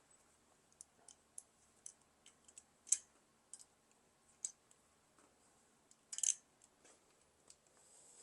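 Sparse, irregular light metallic clicks and taps of a hand spanner working a bolt on an engine's front cover, with a short cluster of louder clicks about six seconds in.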